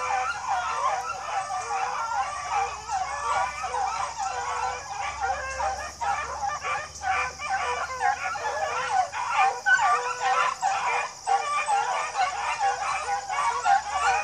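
A pack of beagles baying together, many voices overlapping in a continuous chorus of howling cries, typical of hounds running a scent trail.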